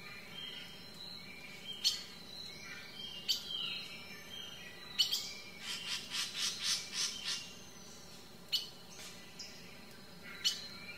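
Small birds chirping: scattered sharp, high chirps, with a quick run of about eight notes about six seconds in.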